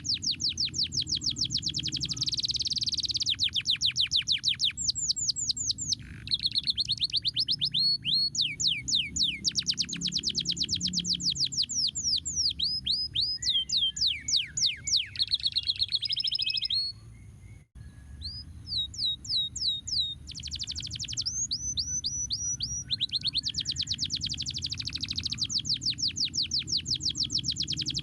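Canary singing in long, fast trills of repeated notes and runs of downward-sweeping whistles, breaking off briefly past the middle before starting again, over a steady low hum.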